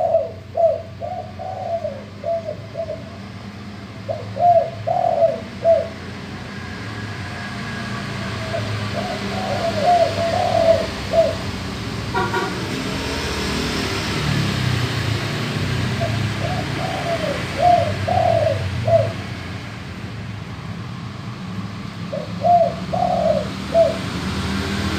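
Male spotted dove (tekukur) singing its full coo song in five bouts of rhythmic coos, in the deep, full voice that fanciers call 'gembur'. Beneath it runs a low background rumble that grows louder after the first few seconds, with a brief toot near the middle.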